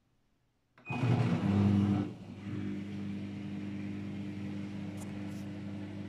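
Daewoo DWD-FT1013 front-loading washing machine, on an unbalanced spin, starting up again after a silent pause: a sudden loud rush of noise for about a second, then a steady machine hum. Two light clicks near the end.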